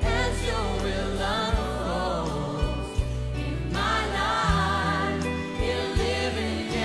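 A recorded song: voices singing with a wavering vibrato over long, held bass notes.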